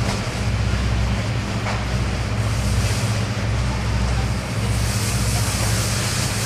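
Steady low machine hum under a constant background roar of noise in a busy drag-racing pit area. A hiss grows louder about five seconds in.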